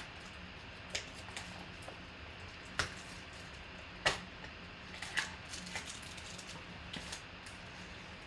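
A foil trading-card pack being torn open and its cards handled: scattered short crinkles and sharp little clicks, the loudest about four seconds in.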